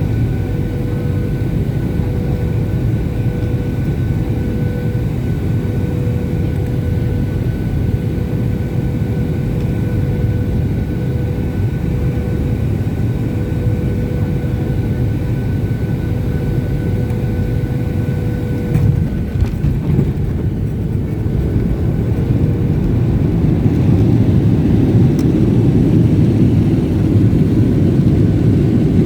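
Boeing 737 cabin noise from the jet engines and airflow, with a steady whine above the rush. About two-thirds of the way in, a few sharp knocks mark touchdown; the whine fades and the engine rush grows louder, as with reverse thrust and braking on the landing roll.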